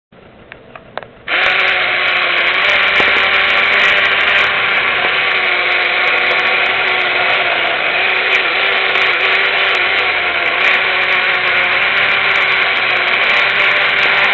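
A few light clicks, then about a second in the Blushing Willy battery-operated tin toy's small electric motor and gear train start and whir steadily as the toy runs.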